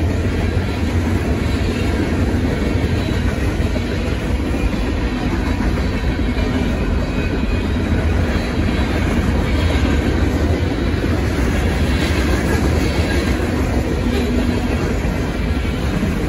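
Freight cars of a mixed manifest train rolling steadily over a grade crossing. The wheels clatter on the rails and the crossing, with a continuous heavy rumble.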